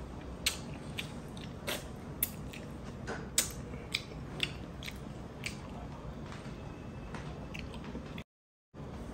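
Close-miked eating of stewed tuna eyes: wet smacks, clicks and sucking sounds from the mouth while chewing, coming irregularly about twice a second, then fewer. The sound drops out to dead silence for a moment near the end.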